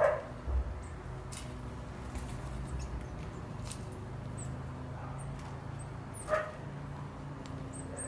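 Two short, loud animal calls, one right at the start and another about six seconds later, over faint, high chirps of small garden birds.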